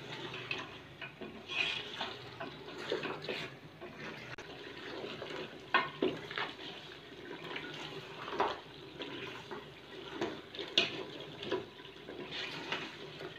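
Spoon stirring and scraping goat trotters in hot oil and spice masala in a cooking pot as they fry, with a sizzle and irregular clinks and scrapes against the pot.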